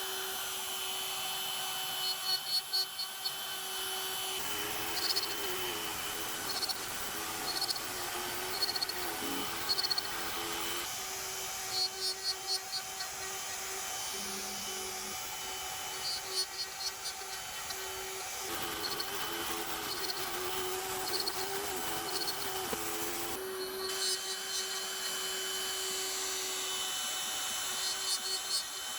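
CNC router running on its own, cutting through a wooden kit sheet, with a steady machine whine throughout. The pitch wavers for two stretches of a few seconds each as the machine changes its moves, and there is faint repeated high ticking.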